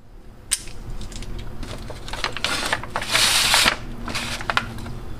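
Metal kitchen tongs clicking and scraping in a disposable aluminium foil pan while the foil crinkles under the steak as it is handled, with one longer, louder crinkle about three seconds in.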